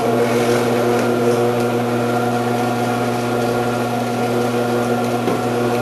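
Omcan HLC 300 vegetable cutter's electric motor switched on and running with a steady hum, spinning a shredding disc.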